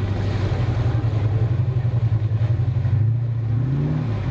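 Off-road 4x4 pickup's engine pulling steadily under load through deep mud, then revving up briefly about three seconds in before dropping back.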